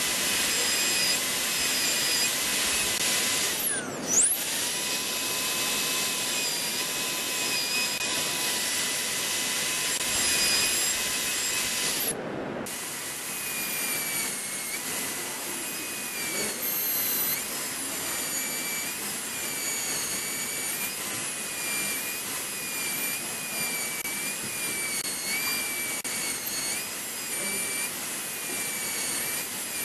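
High-speed air-turbine dental handpiece whining as its bur cuts a model tooth, over the hiss of its water spray. The whine wavers in pitch. About four seconds in it briefly dips and climbs back, and just past twelve seconds it breaks off for a moment.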